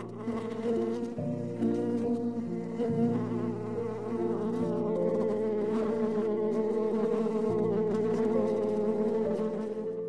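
A colony of honeybees buzzing on the combs of an open hive: a steady, dense hum of many bees' wings.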